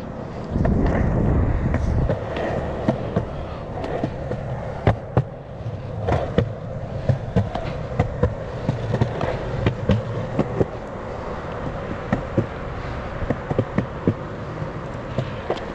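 Sector 9 skateboard's wheels rolling steadily on a concrete sidewalk, with sharp clacks as they cross the joints between the slabs. A louder rumble comes about half a second to two seconds in.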